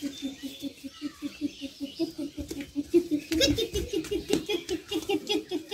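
Young girls laughing and giggling in a long run of quick, evenly repeated syllables, about five a second.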